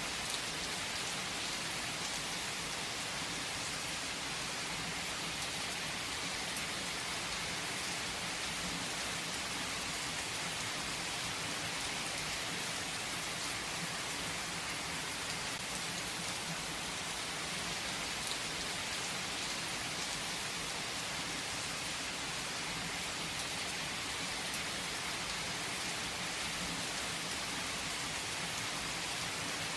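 Heavy rain falling steadily on the leaves of a tree, a dense even hiss of drops with scattered individual drips.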